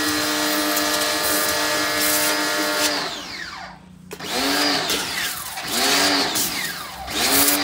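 STARQ ST1800U electric pressure washer (1800 W universal motor) running steadily, with the hiss of its high-pressure water jet. Its motor runs only while the gun's trigger is held; about three seconds in it cuts out, then starts and stops in several short surges, rising and falling in pitch each time.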